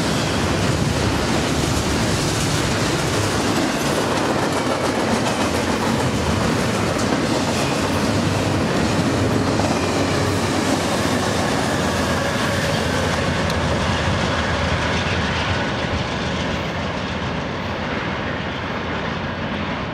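A BNSF double-stack container freight train rolling past close by: a steady, loud noise of steel wheels running over the rails. It gets a little quieter near the end.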